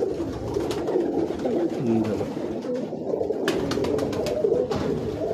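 Domestic pigeons cooing, several at once in an overlapping chorus, with a couple of sharp clicks in the second half.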